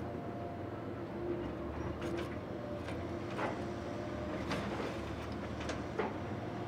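Kobelco excavator's diesel engine running steadily while it digs, with a series of sharp knocks and clanks scattered through the work.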